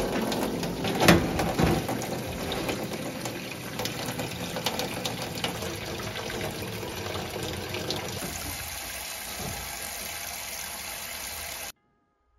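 Tap water pouring steadily into a stainless-steel sink, splashing over pots and percarbonate cleaning powder, with a sharp metal knock about a second in. The water sound stops abruptly near the end.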